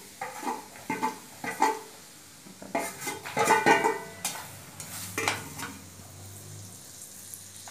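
Metal spoon scraping and tapping whole spices and cashews off a steel plate into hot oil in a kadai, with sharp clinks and the loudest clatter about three to four seconds in. A ladle then stirs the pan while the spices sizzle in the oil.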